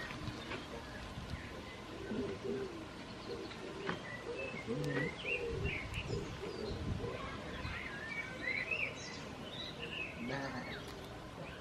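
Outdoor birdsong: short high chirps and whistles scattered through, with lower, repeated calls through the first half.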